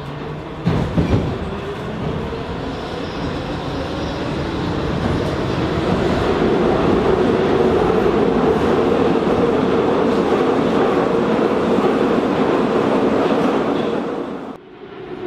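Interior of an 81-717/714 metro car running through a tunnel: steady wheel and running noise that grows louder and holds, with a few sharp knocks about a second in. The sound cuts off abruptly near the end.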